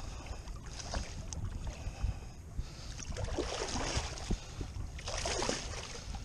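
A striped bass thrashing and splashing at the surface beside a kayak as it is drawn in on the line, in two bouts of splashing, about three seconds in and again about five seconds in. Wind rumbles on the microphone throughout.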